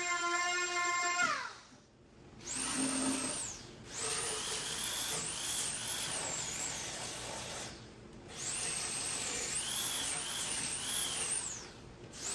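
Handheld power tools working on wood. A motor whines and winds down with a falling pitch about a second in, then a high whining tool runs in three short stretches with brief gaps, its pitch wavering up and down as it bites into the wood.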